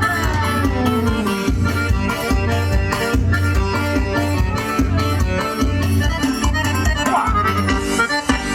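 Forró music: an instrumental passage with the accordion playing chords and melody over a steady, pulsing bass beat and quick, even percussion ticks.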